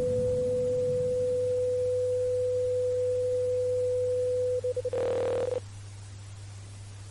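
Emergency alert system alarm tone: one steady, pure mid-pitched note. About four and a half seconds in it stutters a few times, turns buzzier for about half a second, then cuts off suddenly, leaving a low hum and hiss.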